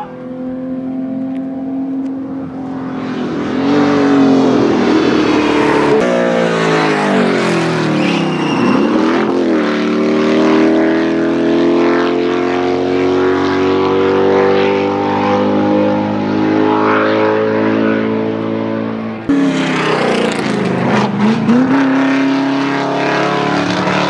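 Race car engines under hard acceleration on a mountain hill-climb course, several cars in turn. The engine notes rise and fall as they rev, and the pitch drops sharply as a car passes close by, about nine seconds in and again near twenty-one seconds. The sound changes abruptly about six and nineteen seconds in.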